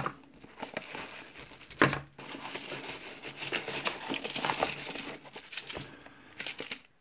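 Bubble wrap and packaging crinkling and rustling as hands rummage inside a cardboard mailing box and pull out a small paper packet. There is a sharper rustle about two seconds in, and it dies away near the end.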